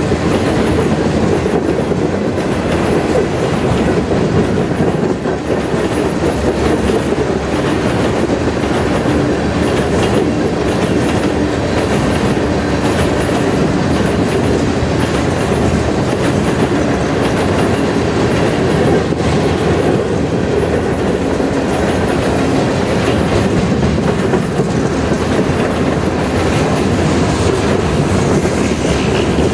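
Freight train passing, its cars rolling by steadily: a loud, even rumble of steel wheels on rail with clickety-clack over the joints.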